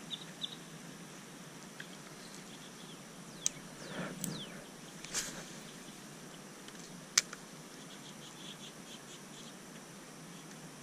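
Fishing rod and spinning reel being handled and cast: a few sharp clicks and two quick falling swishes near the middle, then faint ticking, over a faint steady hum of insects.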